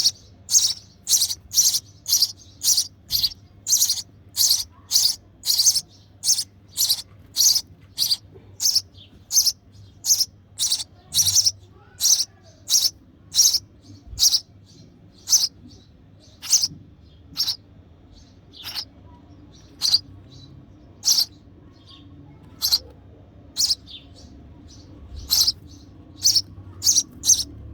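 Sparrow nestling giving short, high begging chirps over and over, about two a second at first and slowing to about one a second later on: a hungry chick calling to be fed.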